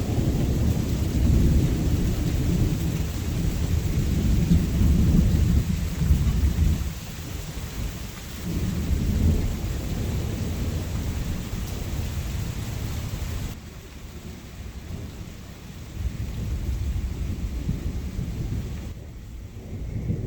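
Thunderstorm: thunder rumbling in long rolls over steady rain hiss. The rain hiss cuts off suddenly about two thirds of the way through, leaving fainter rolls of thunder.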